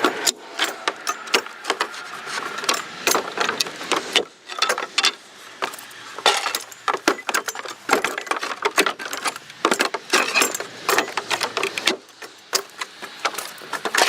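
Pallet boards being pried apart with a pallet buster: a dense, irregular clatter of wooden cracks and metal-on-wood knocks.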